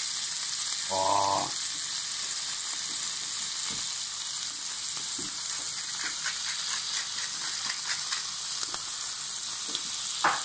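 Beef fillet steaks searing in hot fat in a frying pan: a steady sizzle with scattered crackles of spattering fat, the meat freshly laid in and still raw on top.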